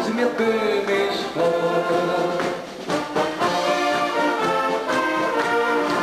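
Brass band playing Bohemian folk music live, a polka medley with trumpets, trombones and tubas sounding together.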